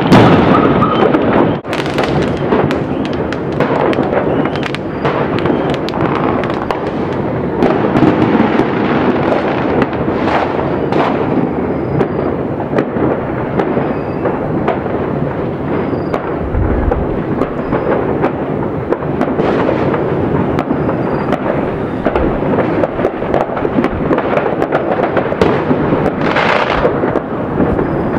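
Many distant fireworks going off at once: a dense, continuous rumble of overlapping booms with sharper bangs and crackles standing out all through.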